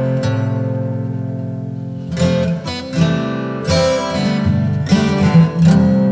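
Acoustic guitar music: strummed chords, the first left ringing for about two seconds, then several quick strums.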